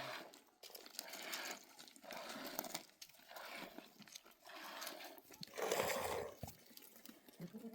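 Livestock calling, with the loudest call about six seconds in, amid irregular scuffing noises.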